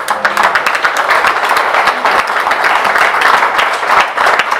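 An audience applauding: many hands clapping in a dense, steady patter.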